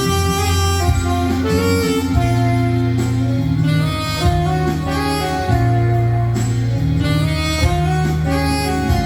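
Saxophone playing a ballad melody in long held notes over a backing track with bass.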